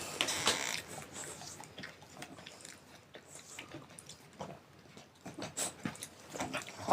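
A sleeping French bulldog snoring and snorting, quiet and irregular, with short clicks and snuffles between the breaths.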